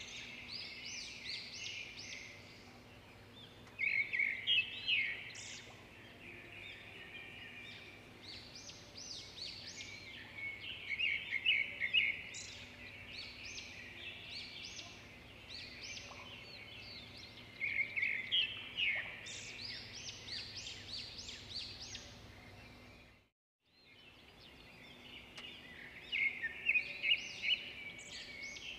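Small birds chirping and twittering in quick bursts every few seconds, over a faint steady hum. The sound drops out for a moment about four-fifths of the way through.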